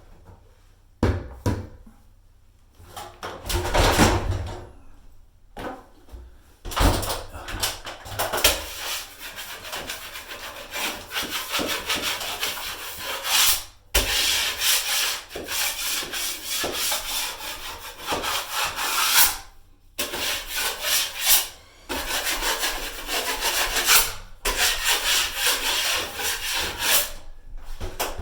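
A blade scraping over a drywall patch in repeated back-and-forth strokes to knock off small chunks and debris before mudding: a few separate strokes at first, then long runs of quick scraping with short pauses between them.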